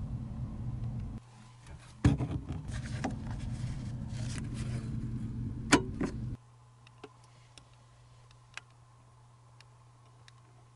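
Handling noise of DuraVent PolyPro plastic vent pipe fittings being handled and pushed together at their gasketed joints: a low rumble with rubbing and clicks, and one sharp click a little before six seconds in. At about six seconds it cuts to a faint steady low hum with a few light ticks.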